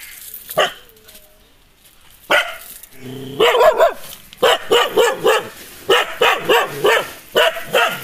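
Nadan dog (Kerala native breed) barking aggressively at people. A single bark, a second a couple of seconds later, then from about three and a half seconds in quick volleys of several barks a second.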